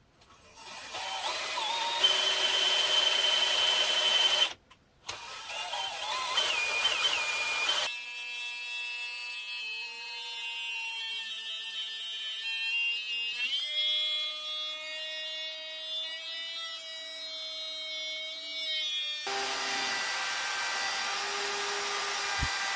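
Metalworking machine sounds in several clips joined by abrupt cuts: a small lathe running, then the high whine of a grinder's electric motor used as live tooling, grinding with a steady hiss, its pitch shifting once partway through. Near the end come short repeated motor hums.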